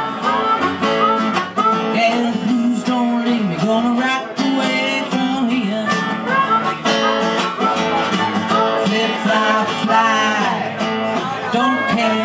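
Live blues band playing, led by a harmonica with bending notes over a strummed acoustic guitar.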